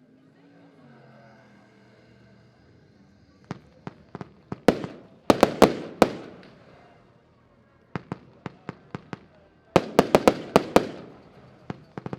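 A 36-shot Diamond Mission One firework battery firing: sharp bangs in quick volleys, starting about three and a half seconds in. After a short lull, a rapid run of reports comes near the end.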